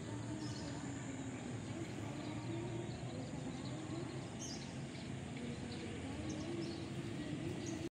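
Steady outdoor background noise with faint, scattered bird chirps.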